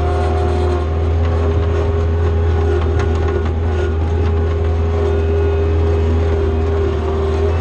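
John Deere skid steer loader's diesel engine running steadily, a constant low drone with a held higher tone over it. A single sharp click about three seconds in.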